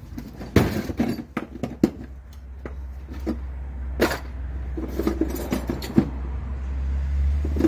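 A screwdriver levering a brake caliper against its bracket to push the seized piston back in: scattered metal clicks and knocks. A low steady rumble grows louder toward the end.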